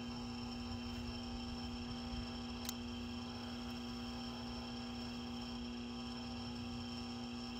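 A steady ambient drone of several held tones, a strong low hum with fainter high ringing tones above it, unchanging throughout, with one faint click about two and a half seconds in.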